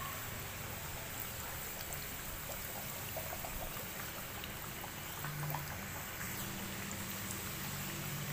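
Samosas deep-frying in hot oil: a steady sizzling hiss with scattered small crackles and pops.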